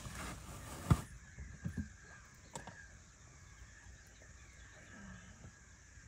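A sharp, loud thump about a second in, then a few softer knocks and a click, over a faint, quiet background: handling knocks from moving about in the floating hide.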